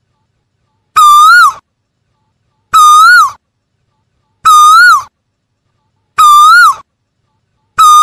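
Asian koel calling, one loud note repeated about every 1.7 seconds: each call swells slightly in pitch and drops away at its end, four calls plus a fifth starting at the very end.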